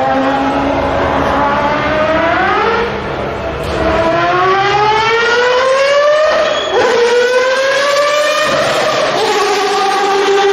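Mazda 787B's 2.6-litre four-rotor Wankel engine screaming at racing speed under full throttle, its high pitch climbing and dropping back at each gear change, about three times, then holding steadier near the end.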